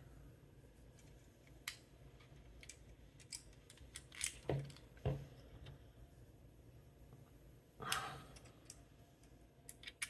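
Scattered light clicks and clinks of small metal parts of an ERA Fortress lever lock being handled as it is put back together, with a louder clack about eight seconds in.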